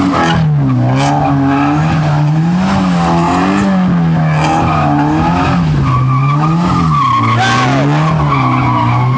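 Car engine revving up and down over and over, about once a second, while its tyres squeal as they spin on the asphalt. The squeal grows steadier and stronger in the second half.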